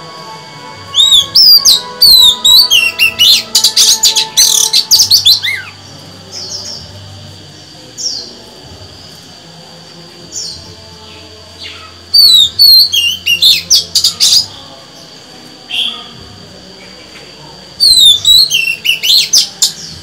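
Female Oriental magpie-robin singing: three bouts of rapid, varied whistled phrases, with single short call notes between them.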